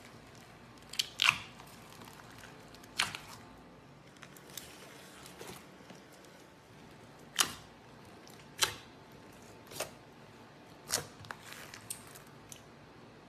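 Clear slime being pressed and stretched by hand, trapped air bubbles popping with sharp clicks, about seven spread irregularly.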